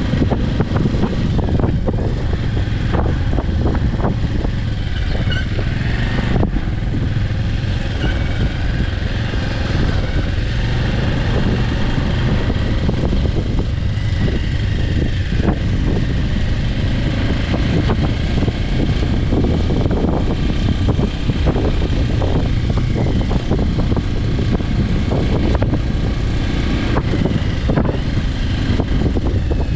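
Motorcycle being ridden at a steady pace, a Bajaj Avenger 160 Street, its single-cylinder engine running evenly under a heavy low rumble of wind rush.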